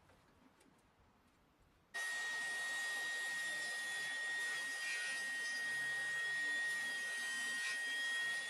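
Jobsite table saw running and ripping a board fed through on a tapering sled: a steady motor and blade noise with one constant whine, starting suddenly about two seconds in.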